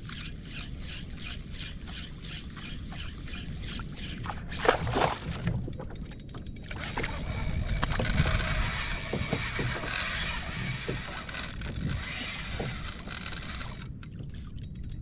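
Fishing reel ticking about three to four times a second for the first four seconds. Then a sharp knock, followed by a long spell of scraping and rustling on the kayak with scattered small knocks.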